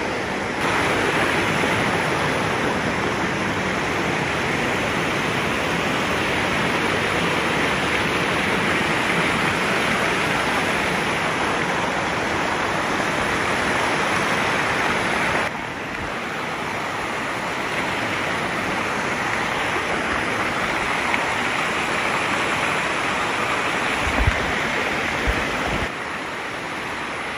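Water rushing and splashing down the shallow rock cascades of a waterfall, heard up close as a steady, loud rush. The level steps abruptly a couple of times, and a few low bumps come near the end.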